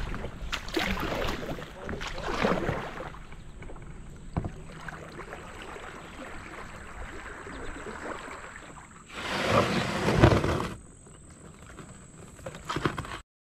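Kayak paddle strokes in the water, irregular swishes and splashes, with a louder rush of noise lasting under two seconds about nine seconds in; the sound cuts off suddenly near the end.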